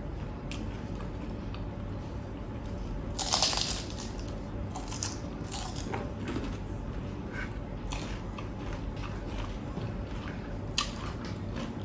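A person chewing and crunching food up close, with one louder crunch about three seconds in and scattered small clicks and crunches after it, over a steady low hum.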